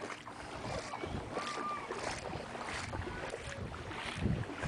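Wind buffeting the microphone over floodwater in a street, with irregular, uneven noise and no clear single event.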